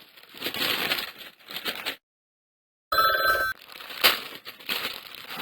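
Two rough coughs, then a short break. After it comes a ringing tone like a telephone bell, and another sharp, cough-like burst about four seconds in.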